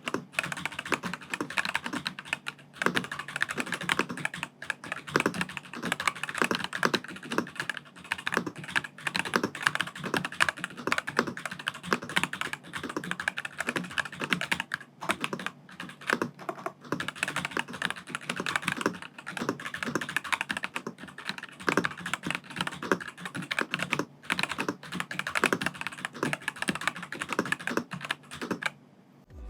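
Fast continuous typing on a VGN N75 Pro gasket-mounted mechanical keyboard with linear SteamWave Pro switches and PBT keycaps, a dense run of keystroke clacks during a typing test. The clacks stop about a second before the end.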